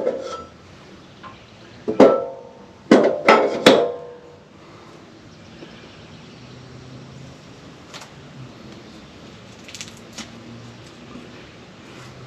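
Five sharp knocks, each ringing briefly with a short tone: one at the start, one about two seconds in, and three in quick succession about a second later. After that only a faint low steady hum with a few small ticks.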